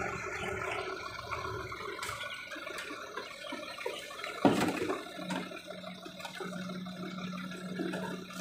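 Heavy tow truck's diesel engine running slowly while towing a semi-trailer truck, with a steady rushing noise and one loud clunk about four and a half seconds in.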